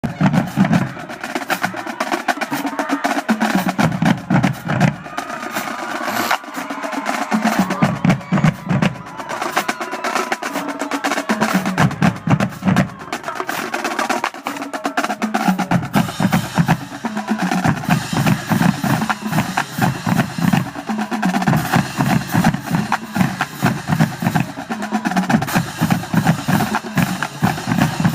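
Marching drumline playing a fast, dense cadence: rapid snare drum strokes and rolls over lower drum hits.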